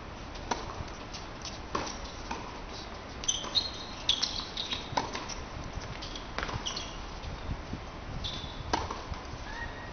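Tennis ball being struck back and forth in a doubles rally on a hard court: sharp racket hits and ball bounces roughly every second, starting with the serve, with rubber-soled tennis shoes squeaking briefly on the court surface midway and near the end.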